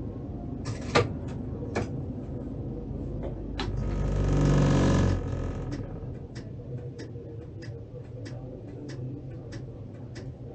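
Tatra T3 tram running, heard from the driver's cab: a steady low hum, a louder rushing swell lasting about a second and a half a few seconds in, then regular sharp clicks about twice a second.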